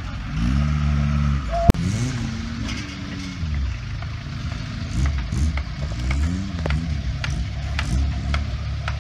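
A Suzuki Samurai's engine revving up and dropping back again and again as it crawls over rough off-road ground. A single sharp knock comes about two seconds in, and a few light clicks come near the end.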